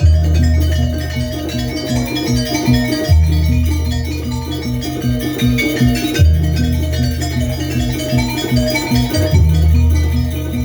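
Live Banyuwangi jaranan music played by a kluncing ensemble: a fast, repeating pattern of pitched percussion over a deep low note that sounds about every three seconds.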